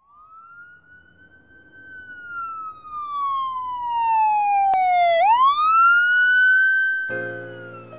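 A siren wail used as the track's intro: a single tone rises, slides slowly down, then sweeps quickly back up and grows louder. Held music chords come in about seven seconds in.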